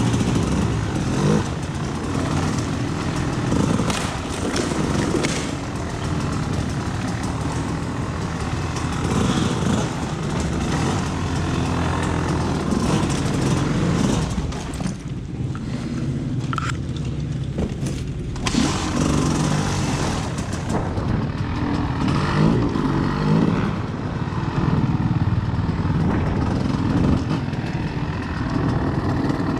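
Off-road vehicle engine running throughout, its pitch rising and falling with the throttle, and easing off briefly about halfway through.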